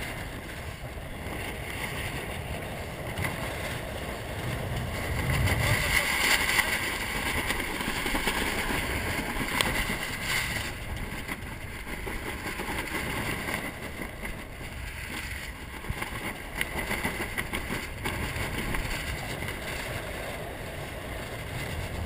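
Water rushing and splashing along the hull of a 470 racing dinghy under sail, with wind buffeting the microphone. The rush swells louder for several seconds about six seconds in, then settles.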